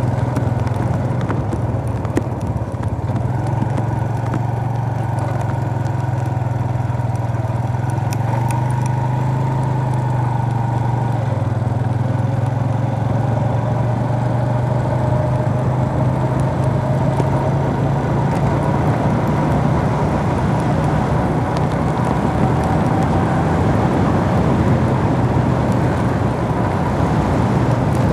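Suzuki GS 150's single-cylinder four-stroke engine running steadily while the motorcycle rides along at low speed. The pitch dips briefly about ten seconds in, and the engine gets a little louder near the end.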